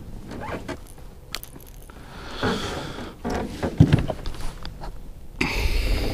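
Handling noises as a largemouth bass is lifted out of the water into a fishing boat: scattered knocks and scrapes, with a heavier thump about four seconds in. A rushing noise with a low rumble comes near the end.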